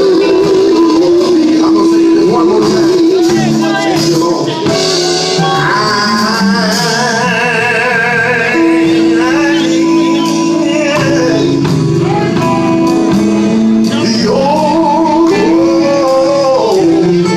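Singers performing a hymn with strong vibrato over instrumental backing with long held notes.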